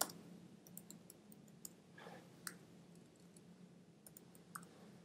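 Faint, irregular clicks of typing on a computer keyboard, a handful of separate keystrokes spread over a few seconds, over a faint low hum.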